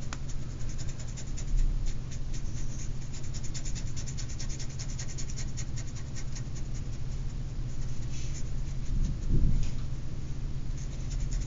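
Flat paintbrush scrubbing paint across the painting surface in rapid short strokes, a dry scratching, over a steady low hum; a soft thump about nine seconds in.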